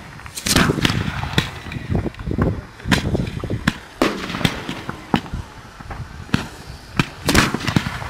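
Aerial fireworks going off in quick, irregular succession: a rapid series of sharp bangs, each trailing off in a low rumbling echo.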